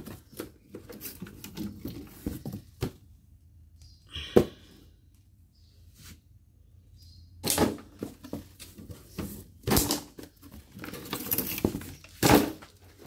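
Knocks, thuds and rustling from things being handled and the phone being moved about in a small room: a sharp knock about four seconds in and several heavier thumps in the second half.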